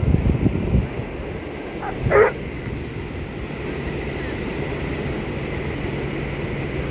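A dog gives one short bark about two seconds in. Steady surf and wind noise run underneath, with strong wind gusts on the microphone in the first second.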